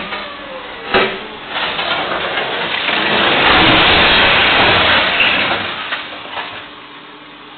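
A SANY truck-mounted crane rolling over onto its side into a field after the soft road edge gives way under its wheels. A sharp knock comes about a second in, then a loud crashing rumble swells, peaks in the middle and dies away over a couple of seconds. It is heard through a security camera's thin-sounding microphone.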